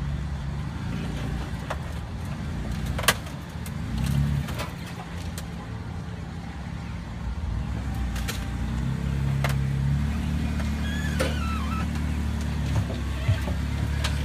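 Lifted Jeep Wrangler's engine running low and rising in short pulls of throttle as it drives up over a Jeep Cherokee's body, crushing it. Sharp cracks sound now and then, the loudest about three seconds in.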